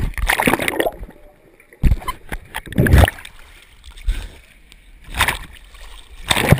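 Pool water splashing and sloshing right against a camera held at the surface during swimming, in surges about once a second with quieter gaps between.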